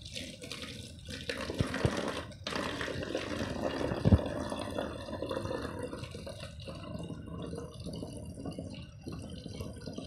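Water poured from a steel pot into a plastic bottle, running out through holes in the bottle's side and splashing into a steel plate. A single knock about four seconds in.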